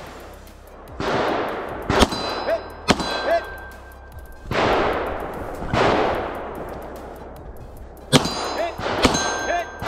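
Four pistol shots in two pairs, each followed by the ringing ding of a hit steel plate target. A rushing noise of the shooter moving fills the gap between the pairs.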